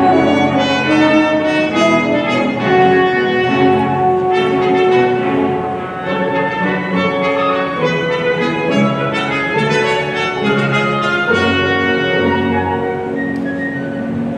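Symphony orchestra playing, with the brass section prominent.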